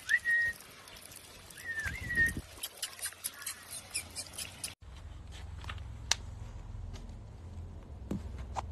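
Puppy whining twice, each a short high whine that rises and then holds, followed by light scattered clicks and rustling. About five seconds in, this gives way to a low steady hum.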